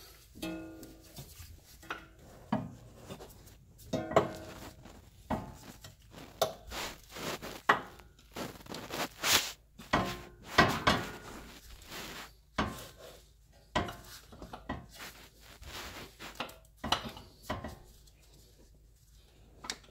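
Irregular metallic clunks, knocks and scraping as a Honda Prelude CV axle is worked into place against the front suspension parts.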